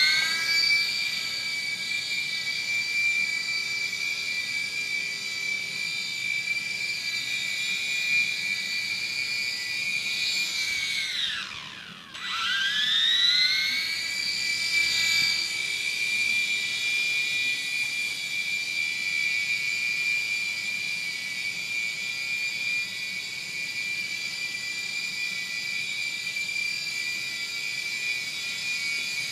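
Air Hogs toy coaxial RC helicopter flying, its small electric motors and rotors making a steady high-pitched whine. About eleven seconds in the whine falls sharply in pitch as the motors slow, then rises back up to full speed and holds steady.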